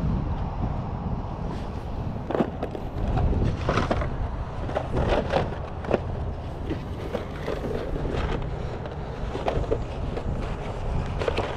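Cardboard model-kit boxes being handled and shuffled in a cardboard box, with scattered soft knocks and scuffs over a steady low rumble.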